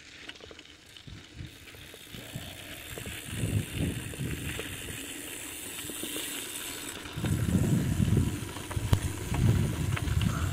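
Bicycle on a dirt trail: rolling tyre and trail noise, with wind gusting on the microphone in irregular low rumbles that grow stronger about two thirds of the way in.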